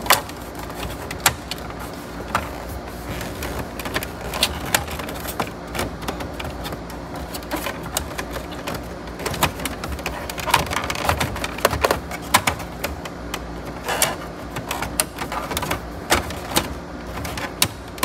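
Irregular clicks and knocks of a double-DIN stereo and its dash mounting kit being pushed and shifted in the dash opening while it is lined up.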